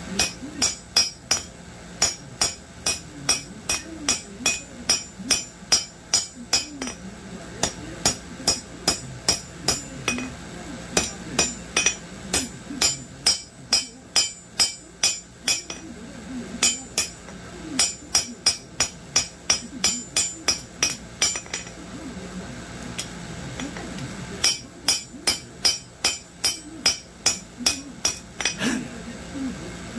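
Hand hammer striking steel on an anvil, forging a garden hoe blade: quick ringing blows, about three a second, in several runs with short pauses between them.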